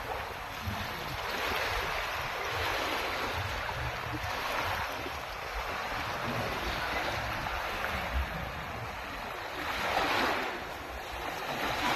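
Ocean surf washing onto a beach: a steady rushing hiss that swells and ebbs, with a stronger wave surging about ten seconds in and another building near the end.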